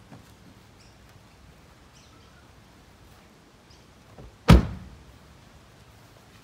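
A car's rear door is pushed shut, landing with one loud thud a little past halfway through.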